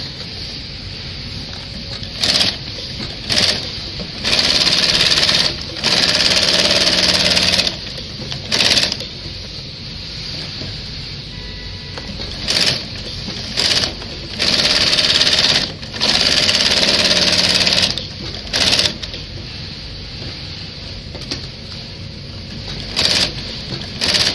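TOPEAGLE TR-168/2 shoe sole-stitching sewing machine running in stop-start bursts as the sole of a skating boot is sewn on. There are about ten runs, from short stabs of a few stitches to runs of nearly two seconds, with a lower steady hum between them.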